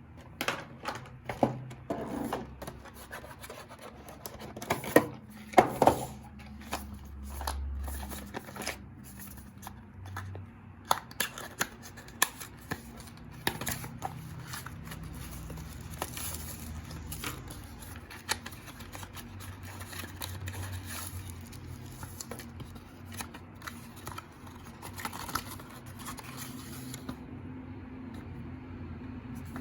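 Hands handling the packaging and parts of a mechanical keyboard being unboxed: irregular clicks, knocks and scraping, loudest about five to six seconds in, thinning to quieter rustling in the second half.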